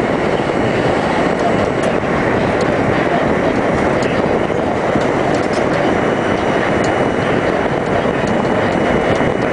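New York City Subway R-32 train running at speed through a tunnel, heard from inside the car: a loud, steady noise of wheels on the rails.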